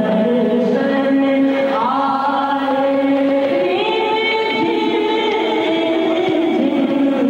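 A young man reciting a naat, singing unaccompanied into a microphone in long, held, ornamented notes. His voice climbs to a higher held note about two seconds in and again near four seconds.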